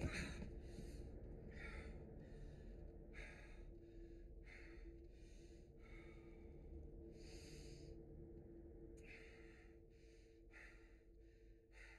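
A person breathing quietly and raggedly: about a dozen short, uneven breaths at irregular intervals, over a faint steady low hum.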